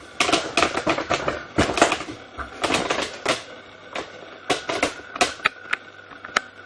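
A busy run of sharp, irregular clicks and knocks, over a dozen, unevenly spaced and thinning out toward the end.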